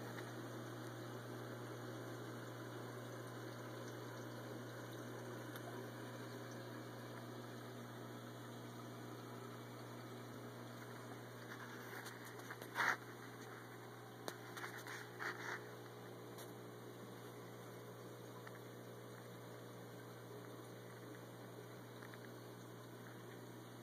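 Faint steady hum and water noise from a running reef aquarium, with a few short clicks about halfway through.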